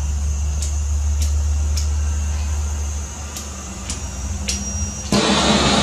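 Handheld torch: a few faint clicks, then about five seconds in the flame lights with a sudden loud, steady hiss.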